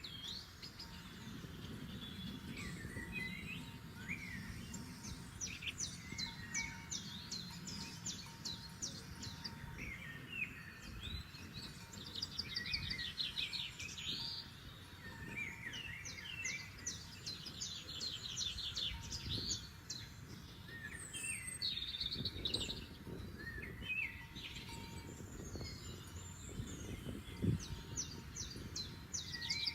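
Several forest songbirds singing at once: overlapping fast high trills and short chirps, repeating throughout, over a low steady rumble.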